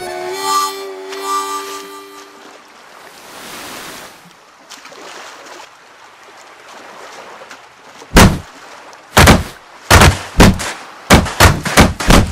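A short held musical chord that fades out, a soft wash of surf, then a run of loud thumps starting about eight seconds in and coming faster near the end: a cartoon wooden crate hopping and landing on the sand.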